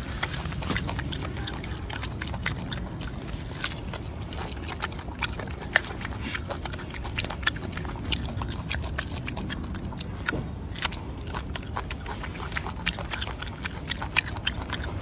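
Golden snub-nosed monkey chewing and biting a piece of food, with many irregular short clicks over a low steady rumble.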